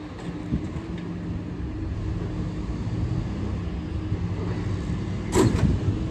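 R211A subway train standing at the platform with a steady low hum from its onboard equipment; about five seconds in, its doors slide open with a short loud rush.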